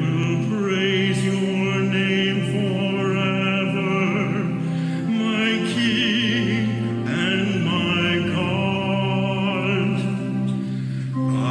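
A male cantor sings a sacred song with vibrato in long phrases over sustained organ chords.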